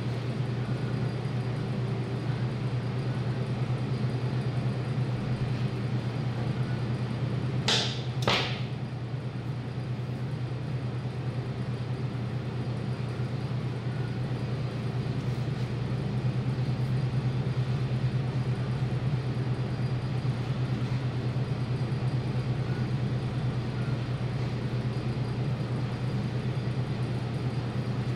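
Steady low machine hum. Two quick swishes about eight seconds in.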